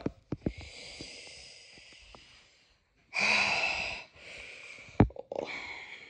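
A person's breathy huffs and wheezes close to the microphone: a soft one over the first two seconds, a louder, harsher one about three seconds in, and shorter ones after, with a few sharp clicks and a thump about five seconds in.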